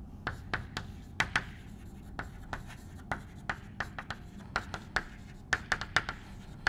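Chalk writing on a chalkboard: an irregular run of short taps and scrapes as a line of words is written.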